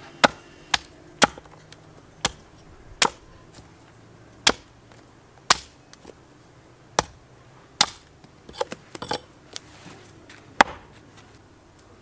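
Handmade steel axe chopping into the end of a green sapling stick on a wooden stump: about a dozen sharp chops at irregular intervals, with a few quick lighter taps between them, stopping shortly before the end.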